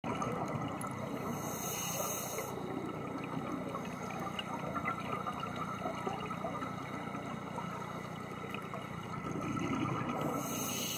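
Scuba diving underwater: a steady watery rush of noise, with a diver's regulator breath hissing twice, about nine seconds apart.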